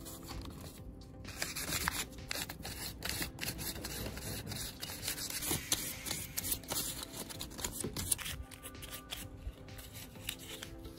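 Fine P1200 sandpaper rubbed on a car battery's terminal post to polish off corrosion and grime: a dry scratching in quick strokes that starts about a second in and stops about eight seconds in, over quiet background music.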